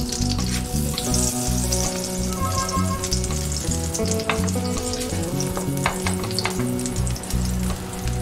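Food sizzling and crackling in a hot frying pan, with a few sharp clicks.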